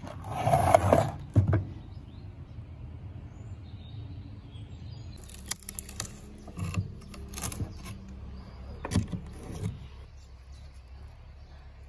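A loud scrape of an old wooden frame on a wooden tabletop near the start, then end-cutting pincers biting and levering a rusty nail out of rotten, worm-eaten timber: several sharp clicks and short cracks as the nail and crumbling wood give.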